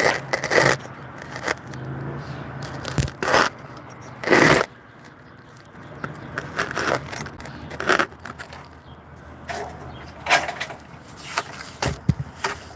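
Irregular scrapes and knocks, about ten short ones, the loudest about four seconds in.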